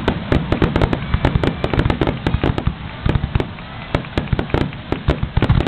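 Aerial fireworks finale barrage: rapid, overlapping shell bursts, many bangs a second, with deep booms underneath, thinning slightly midway before picking up again.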